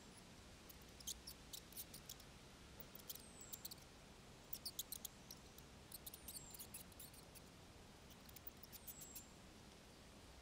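Mice squeaking faintly: clusters of short, very high-pitched squeaks and clicks, with a thin falling whistle recurring about every three seconds.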